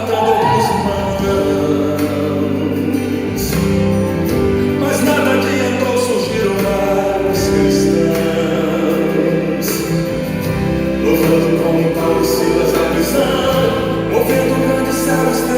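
Brazilian gospel song with singing and choir over a full band with steady drum hits.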